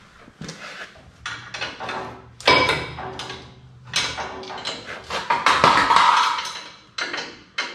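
Irregular metal clanking and knocking as hand tools and parts strike a truck's steel frame and rear axle, with the loudest clanks about two and a half seconds in and again around five and a half seconds in, the second one ringing briefly.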